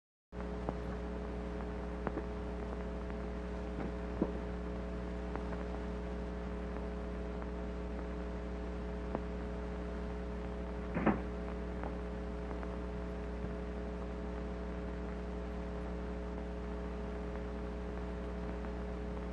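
Steady low hum with several overtones over faint hiss, the background noise of an old film soundtrack, with a few faint clicks and a brief soft noise about eleven seconds in.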